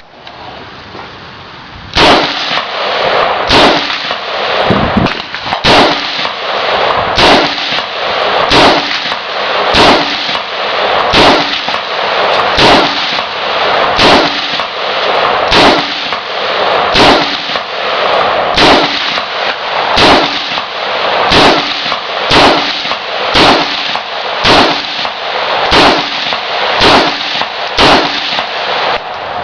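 AR-15 rifle in .223/5.56mm firing semi-automatic shots at a steady pace, about three every two seconds, starting about two seconds in and going on for several dozen rounds. Each shot is followed by a loud echo.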